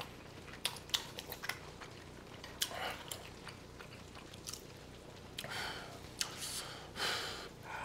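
Close-miked chewing of beef bulgogi and kimchi, with scattered wet mouth clicks and smacks. There are a couple of breathy swells in the second half.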